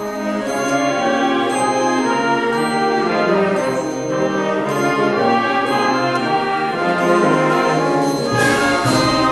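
School wind band (concert band) playing full sustained chords led by the brass, with a bright crash near the end.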